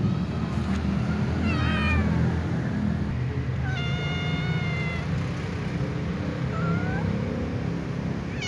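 Domestic cat meowing three times over a steady low rumble: a short wavering meow, then a long drawn-out one of about a second and a half, then a short rising one.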